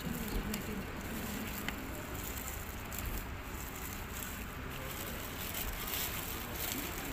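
Steady background noise of an open-air roadside rest stop: a low rumble of traffic with a faint murmur of distant voices.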